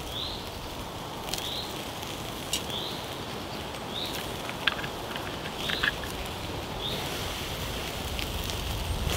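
Two burgers sizzling on a small twig-stove grill, a steady soft hiss, while a small bird repeats a short rising chirp about once a second. A few light clicks fall near the middle.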